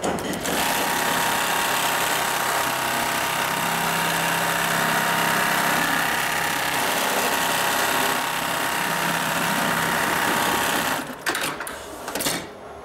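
BAS-326G programmable pattern sewing machine running steadily as it stitches a pattern into leather held in its clamp frame. It stops about two seconds before the end, followed by a few short clicks.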